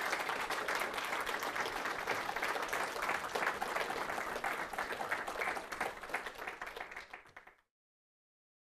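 Audience applauding, a dense steady clapping that eases a little and then cuts off abruptly about seven and a half seconds in.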